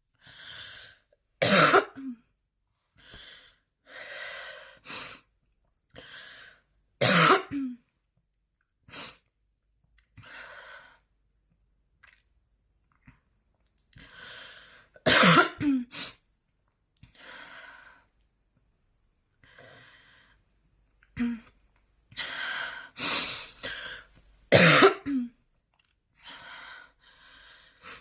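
A woman coughing hard in repeated fits: short sharp coughs in clusters, with quieter breaths between them. The loudest bursts come about halfway through and again near the end.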